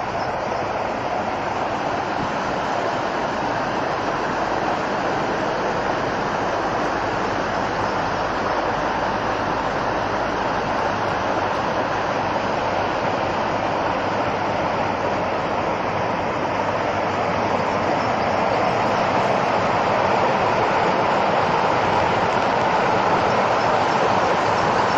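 Rushing water, a steady even rush that grows slightly louder in the last third.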